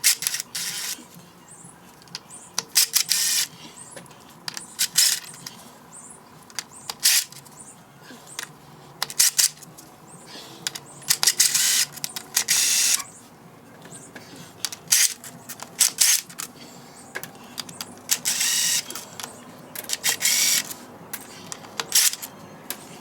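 Metal clinks and clatter, many short bursts in irregular clusters: steel bolts being backed out of a Land Cruiser transfer case's carrier differential assembly and set down on a hard surface.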